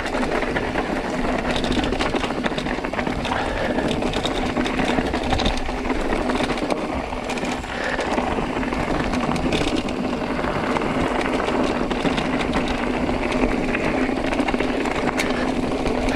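Mountain bike descending a rocky trail: tyres rolling over loose stones with constant rattling and knocking of the bike over the rocks, under a steady hum.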